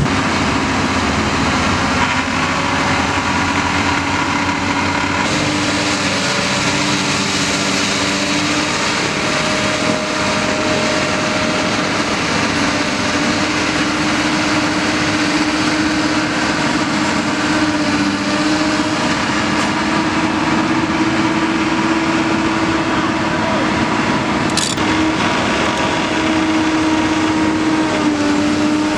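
Komatsu PC200 excavator's diesel engine running steadily under load, with a steady whine that shifts slightly in pitch.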